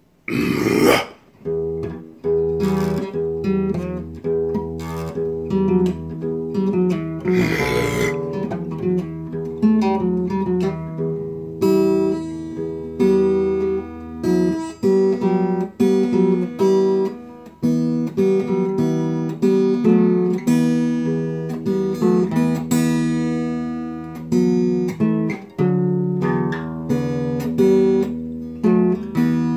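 Acoustic guitar played on its own, with no singing: two hard strums, about a second in and near eight seconds, then a steady run of chords strummed and picked.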